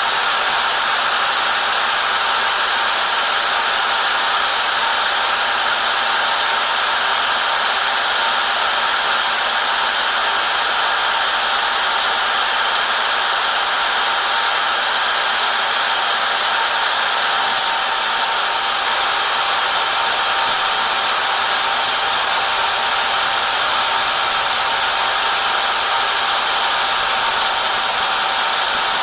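Power drill running at steady full speed for about half a minute without a break, its pilot bit cutting into a padlock's pin-tumbler core, with a constant high motor whine.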